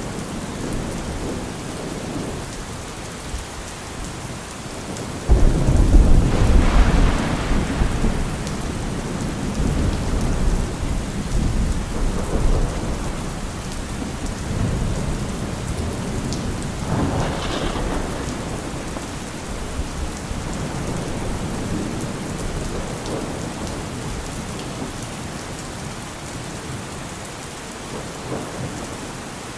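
Steady rain with thunder. A sudden loud thunderclap comes about five seconds in and rumbles on for a few seconds, another rumble rolls in past the middle, and a fainter one comes near the end.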